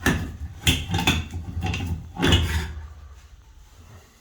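Old bathtub spout being twisted off its supply pipe by hand: a few knocks and clunks against the fitting in the first couple of seconds, the loudest about two and a half seconds in, then quieter handling that fades out.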